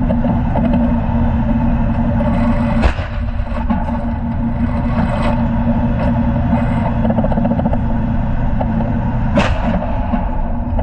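A tank's engine running steadily with a low rumble and a steady hum. A sharp bang comes about three seconds in, and the tank's main gun fires about nine seconds in.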